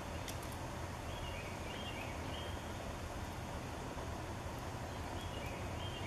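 A songbird calling off-picture, twice: each a short phrase of brief high notes stepping between two pitches. Behind it is a steady low outdoor rumble, with a single sharp click just after the start.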